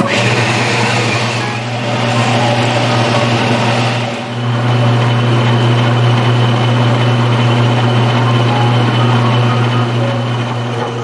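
Tabletop wet grinder running: its electric motor hums steadily as the stone rollers turn in the steel drum, grinding soaked rice and urad dal into dosa batter. It starts abruptly, with a brief dip about four seconds in.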